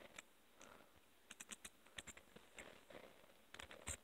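Small plastic LEGO bricks clicking and tapping as they are handled and pressed together, in a few quick clusters of light clicks.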